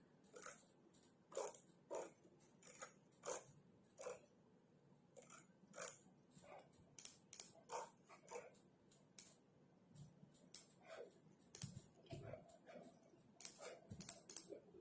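Keystrokes on a computer keyboard: quiet, irregular clicking at a few keys a second, with short pauses, as someone types. A few soft low thumps come in the last few seconds.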